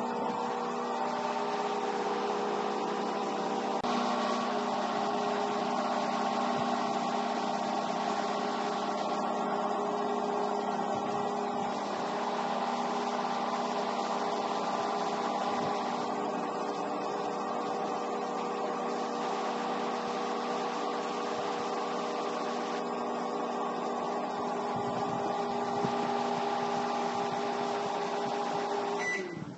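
Microwave oven running with a steady hum of several tones and a hiss on top that drops out three times for a few seconds each. Near the end the hum falls in pitch and cuts off as the oven stops.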